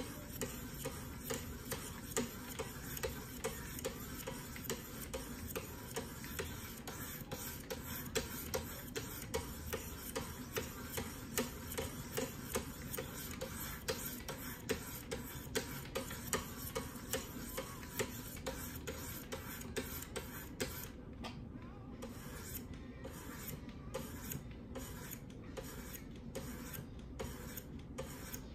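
Wicked Edge guided sharpening stones scraping along a steel knife blade in quick repeated strokes, about two a second. After about twenty seconds the scraping thins out and the strokes stand apart.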